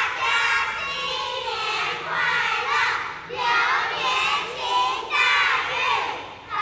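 A chorus of young children's voices in unison, in short phrases of about a second each with brief breaks between them.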